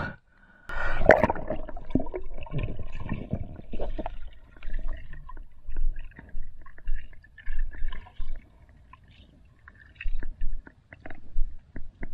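Water sloshing as the camera goes under the surface about a second in, then muffled underwater sound of a diver swimming: a low rumble with bubbling, scattered clicks and short knocks.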